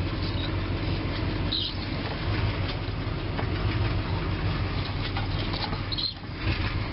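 Old Dodge Power Wagon pickup's engine running steadily at low speed as the truck creeps along, heard from inside the cab, with a couple of faint clicks.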